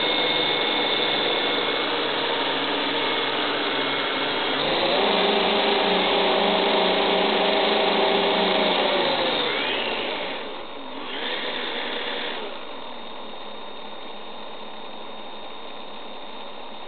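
Electric motors and propellers of a radio-controlled model B-17 running on the ground, a steady whine. The pitch rises as the throttle is opened about four and a half seconds in and holds, drops back around nine seconds, rises briefly again near eleven seconds, then settles slower and quieter.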